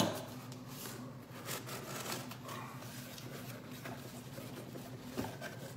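Cardboard shipping box being opened by hand: light rustling, scraping and soft taps as the flaps are pulled back and the inner box slides out.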